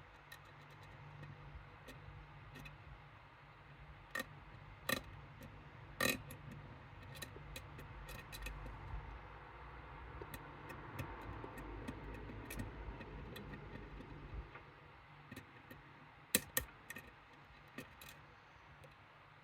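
Small, irregular metal clicks and ticks of tools working in a Medeco M3 lock cylinder, with a few louder clicks scattered through.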